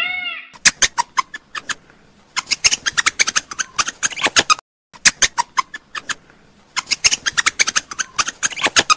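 A raccoon crunching dry cereal rings, quick clusters of sharp crunches with short pauses, and a brief silent gap about halfway through. In the first half second a repeated pitched call cuts off.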